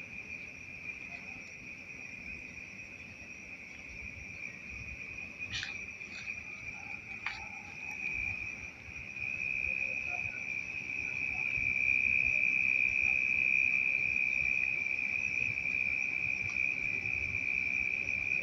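Night insects, cricket-like, singing one steady, unbroken high-pitched trill that grows louder a little past the middle. A couple of faint clicks fall about six and seven seconds in.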